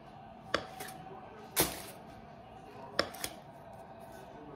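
Four sharp knocks and taps on a kitchen countertop as dough is handled and rolled pieces are set on a foil-lined tray. The loudest comes about a second and a half in, and a quick pair near the end.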